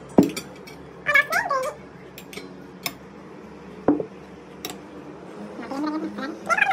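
A cat meowing twice in short calls that rise and fall in pitch. A plate clinks sharply on the table about a quarter second in, and a spoon clinks on a plate about four seconds in.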